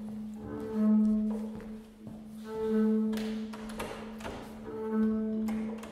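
Live contemporary chamber music for soprano and bowed double bass: a sustained low note swells and fades in repeated phrases about every two seconds, with higher held tones over it.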